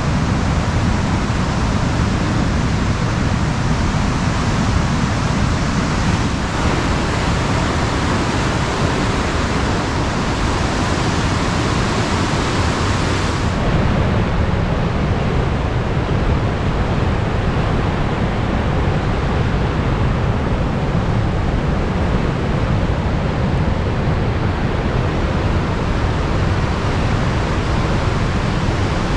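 Steady, loud rush of falling water from Niagara Falls, an even noise with no breaks. About fourteen seconds in the high hiss drops away suddenly and the rush goes on duller.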